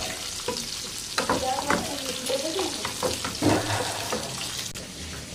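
A spatula stirring a chickpea and potato mixture in a non-stick pan, with scattered scrapes and clicks, over the steady sizzle of nuggets deep-frying in hot oil in a neighbouring pan.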